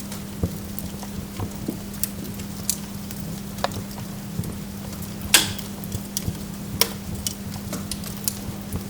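Burning wood logs crackling: irregular sharp pops and snaps, the loudest about five and a half seconds in, over a steady low hum.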